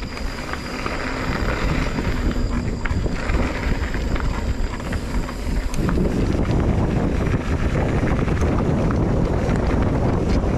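Wind buffeting the microphone of a camera riding along on a mountain bike, mixed with tyre noise on the dirt trail and small rattles from the bike. The low rumble gets stronger about six seconds in.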